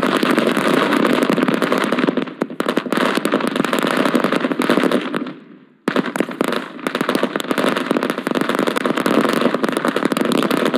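A string of firecrackers (ladi) going off in a rapid, continuous rattle of small bangs. It breaks off for a moment a little past the middle, then resumes abruptly.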